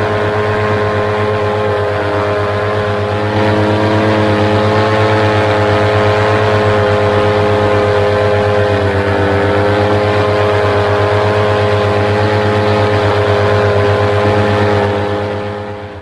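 Paramotor's Vittorazi Moster 185 single-cylinder two-stroke engine and propeller running steadily in flight, loud and close to the microphone. The pitch sags slightly about halfway through, then picks up again, and the sound fades out near the end.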